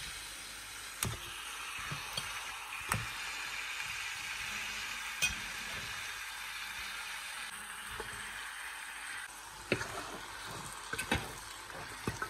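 Raw chicken wings sizzling in hot oil and fried onion masala in a steel pressure-cooker pot, the sizzle easing somewhat in the second half. Sharp clinks of a steel spoon against the pot come now and then as the pieces are turned.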